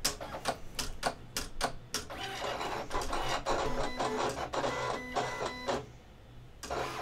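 Silhouette Cameo 4 vinyl cutting machine running a test cut: the motors whir and click as the blade carriage and rollers move the cut through a small square-and-triangle shape, the whir changing pitch with each stroke. The motors stop about six seconds in, then give one more short whir just before the end.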